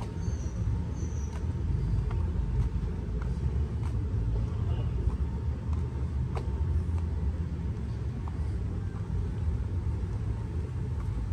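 Steady low rumble of outdoor town ambience, with a few faint clicks.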